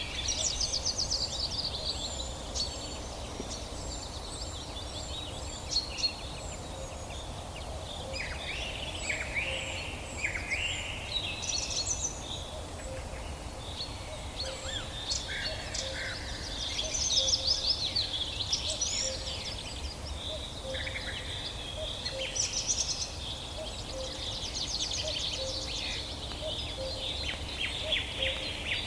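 Several wild birds singing and calling over one another: short chirps, whistled glides and fast trills, some busier stretches around the middle and near the end, over a steady low background rumble.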